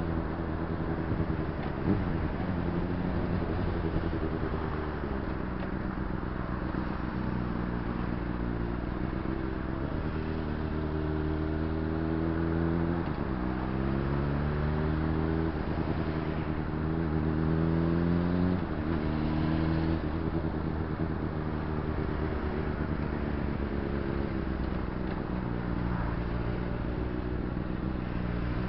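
Honda CBR600RR's inline-four engine running at low road speed in traffic, with steady road and wind noise. Twice it revs up, the pitch climbing for a few seconds around the middle, and each time it drops back.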